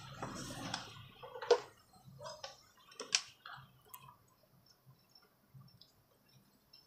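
A few sharp clicks and light knocks of hard parts being handled, the two loudest about one and a half and three seconds in, then scattered faint ticks.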